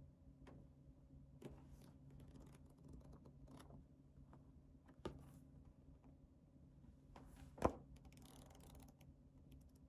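A small paper notebook being handled by hand: soft taps and clicks of the cover and pages, with a sharper tap about three-quarters through followed by a short rustle of pages being leafed.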